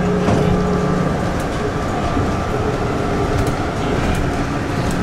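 Steady cabin noise inside an Airbus A320 after landing: a low, even hum with a steady drone under it and a few faint clicks.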